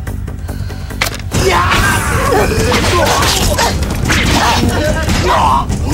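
Film sword-fight soundtrack: a low pulsing score, then about a second in a sudden loud burst of fighters' shouts, sword swishes and blows over the music.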